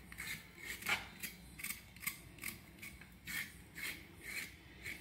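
A kitchen knife scraping over a peeled raw nendran plantain in quick short strokes, about two to three a second, cleaning off leftover bits of peel and fibre.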